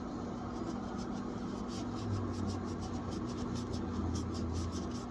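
Norwex microfibre kitchen cloth scrubbing a rubber refrigerator door seal in quick back-and-forth strokes, about three or four a second, starting about a second in, over a steady low hum.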